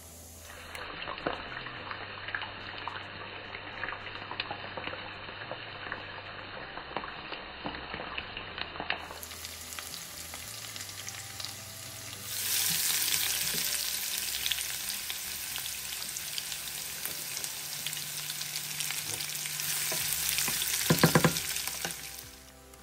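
Food sizzling and crackling as it fries in a hot pan, with scattered small pops. It gets louder about twelve seconds in, and a quick run of sharp knocks near the end, like a utensil striking the pan, is the loudest moment.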